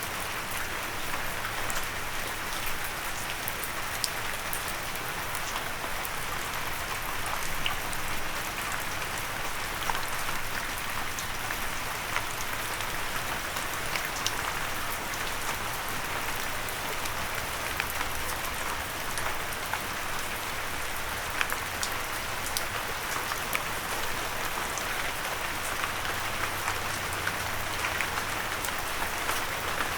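Steady rain falling on a windowsill, a continuous hiss with many individual drops tapping sharply throughout.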